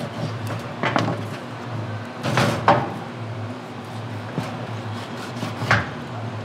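Long knife slicing through a raw chunk of mako shark on a plastic cutting board, with a few sharp knocks as the blade and meat strike the board: about a second in, around two and a half seconds, and near the end.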